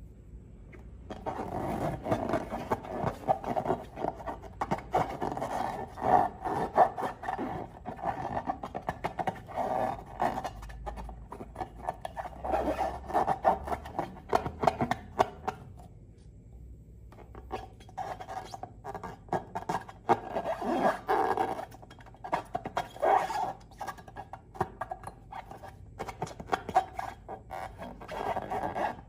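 Slime being squished and stretched by hand, a dense run of wet, sticky clicks and pops that stops briefly about halfway through and then starts again.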